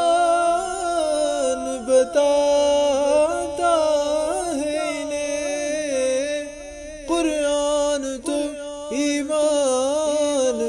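A man singing a naat in Urdu, drawing out long wavering notes between the words of the verse.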